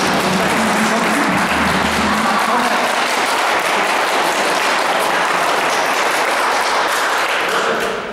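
A group of people applauding, a steady patter of many hands clapping that dies away near the end.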